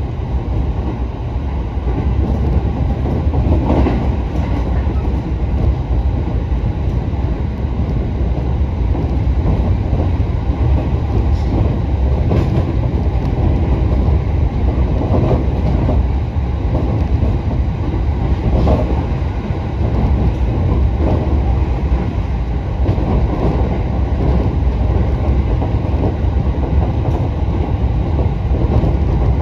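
Running noise inside a JR Sobu Line electric commuter train moving at speed: a steady low rumble of wheels on rail, with a clack now and then as the wheels cross rail joints.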